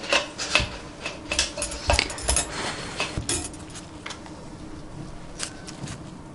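A quick run of light clicks and clinks from metal surgical instruments being handled, thick in the first three seconds and sparser after, over the rustle of cotton wool as a newborn kitten is rubbed to stimulate its breathing.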